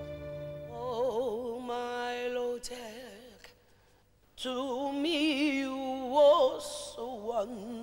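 Soundtrack song: a solo singing voice with heavy vibrato, slow and sentimental, pausing briefly about three and a half seconds in before going on.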